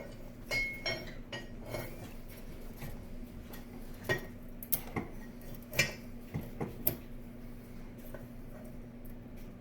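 Steel hold-down cable and its metal fittings clinking and knocking against the anvil and workpiece: a scatter of sharp, irregular metallic clinks, busiest about four to seven seconds in, over a steady low hum.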